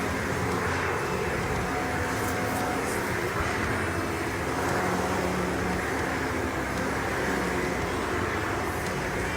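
Vacuum cleaner motor running steadily, with a constant rushing hum.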